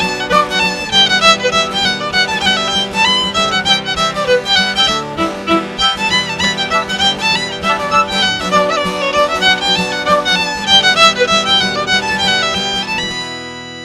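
Fiddle playing a fast traditional Irish dance tune, a quick run of notes over a steady lower drone string, ending on a held note near the end that dies away.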